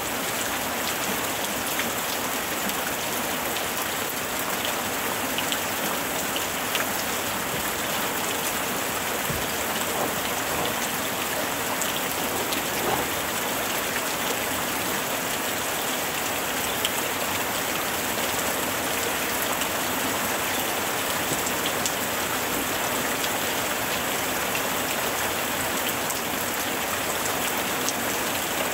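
Steady rain, an even continuous hiss with scattered small drop ticks.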